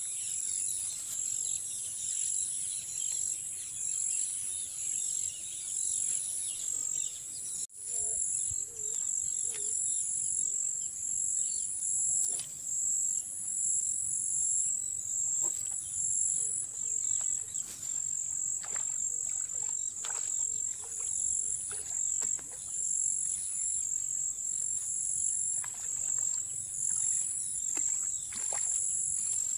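Insects chirring in a loud, high-pitched drone that pulses in a steady rhythm of two alternating tones, cutting out for a moment about eight seconds in.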